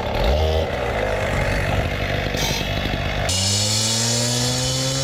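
Concrete saw running and cutting into a concrete curb to score it for breaking. About three seconds in, the sound turns into a steadier engine note whose pitch rises slowly.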